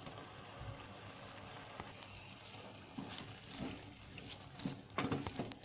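Par-boiled chicken pieces frying in an onion-tomato-spice masala in oil, with a steady soft sizzle. A few light knocks come near the end as the pan is stirred.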